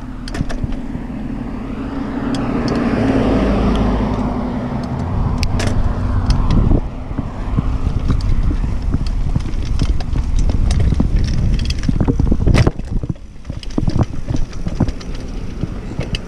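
Wind rumbling on the microphone of a moving bicycle, with the bike rattling and knocking over bumps as it rides across grass. One knock about three-quarters of the way through stands out.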